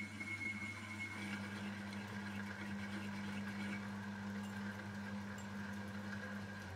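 Metal lathe running steadily while boring out the bore of a small steel change gear held in the chuck: a low hum with a thin high whine that drops a little in pitch about a second in.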